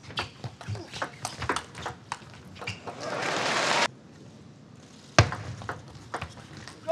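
Table tennis ball clicking off bats and table in quick, irregular strokes of a rally, then crowd applause that swells and cuts off abruptly. After a pause comes a sharp loud hit and more ball clicks of the next rally.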